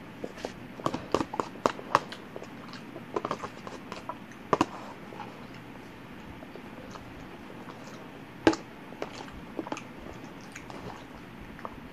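Close-miked eating sounds of someone eating lasagna: chewing and mouth smacks in short clusters, with scattered sharp clicks, the loudest about eight and a half seconds in.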